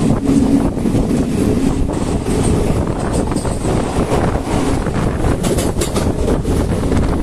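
Passenger train running at speed: a steady rumble of wheels on the rails, with wind buffeting the microphone.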